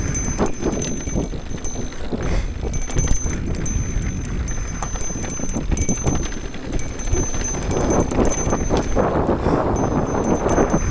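Mountain bike riding over a rough trail: tyres rumbling over dirt and rocks, with quick rattling and knocking from the bike and its fork taking the hits.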